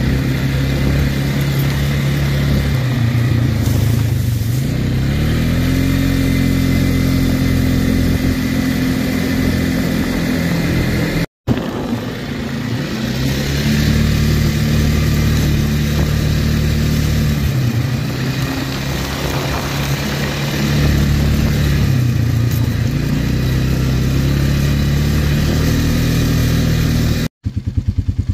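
ATV engine running as the quad drives along a gravel road, rising in pitch as it speeds up about four to six seconds in, then holding a steady drone. The sound cuts out briefly twice, and near the end the engine idles with an even putter.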